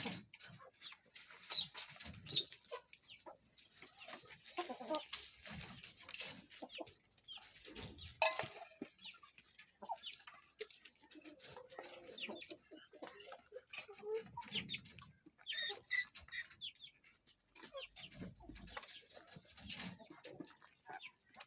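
Pheasants in a pen calling with short, scattered clucks and chirps, mixed with small clicks and scuffs.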